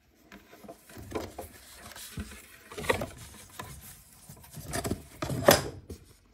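Pages of a large paperback picture book rustling and crackling as a hand lifts and flexes them, with two louder crackles, one about three seconds in and one near the end.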